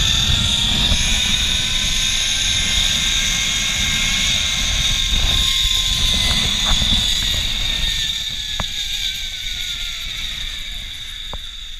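Zipline trolley pulleys running fast along the steel cable, a steady high whine over wind rushing on the camera. Over the last few seconds the whine drops in pitch and the sound fades as the trolley slows.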